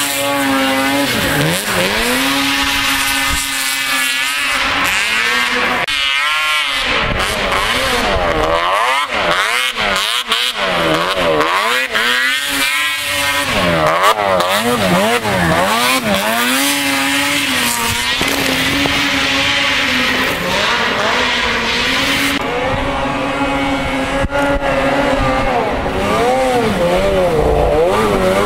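Snowmobile engines revving hard and easing off over and over as sleds climb a steep snowy hill. The pitch swings up and down with the throttle, and several sleds are heard in turn.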